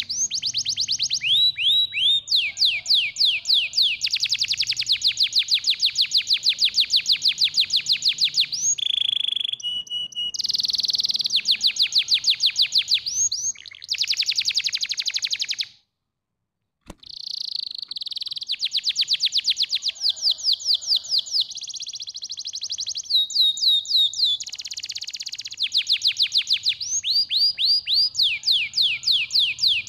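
Domestic canary singing: long, fast trills of rapidly repeated notes, one run after another with changes of note type every few seconds. The song cuts out abruptly for about a second near the middle.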